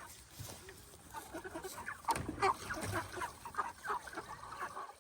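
A flock of broiler chickens clucking: many short, soft calls overlapping, busier after the first couple of seconds.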